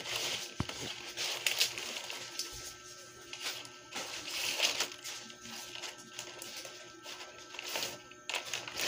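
Background music with repeated dry rustling of nipa palm leaves as they are handled and stitched into a pawid thatch panel.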